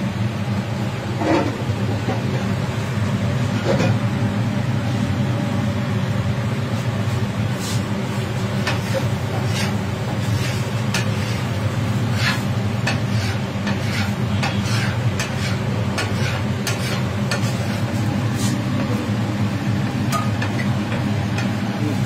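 Street-food griddle frying with a steady low hum under it, and scattered sharp metal clicks and taps, thickest from about seven seconds in.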